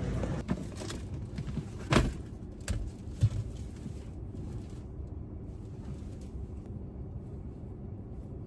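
A few sharp knocks and clicks in the first three seconds, then a steady low rumble inside a car's cabin.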